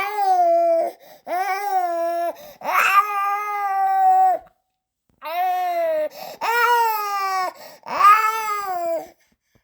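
Newborn baby crying: about six loud wails, each roughly a second long and rising then falling in pitch, the third one held longer. There is a short break for breath just before the middle, and the crying stops shortly before the end.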